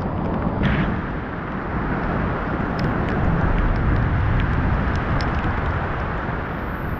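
Loud, steady roar of strong storm wind buffeting the microphone, with a deep rumble and a few faint ticks.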